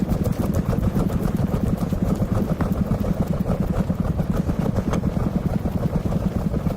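Engine running steadily, with a rapid even pulsing.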